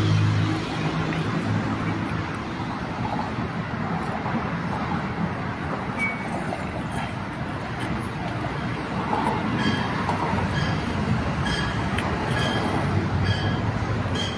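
Steady low street rumble of a large passing vehicle, with a deep droning note fading out in the first second. About ten seconds in, a short electronic beep starts repeating about twice a second.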